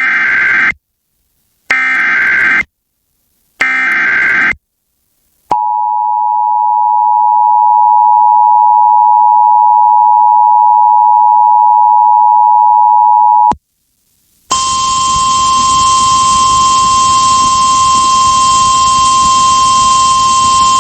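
Emergency Alert System broadcast tones: three short bursts of screechy digital header data, then the two-tone EAS attention signal held steady for about eight seconds. After a second's gap comes a single steady warning tone over radio hiss, the NOAA Weather Radio alarm tone relayed off-air.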